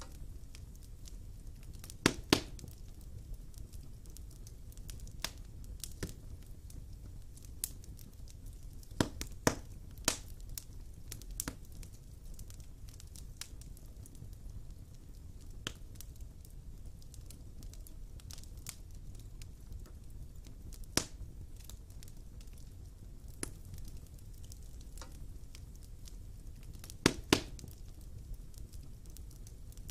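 Wood fire burning in a fireplace, crackling with scattered sharp pops over a low steady rumble; the loudest pops come in pairs about two seconds in, about nine seconds in and near the end.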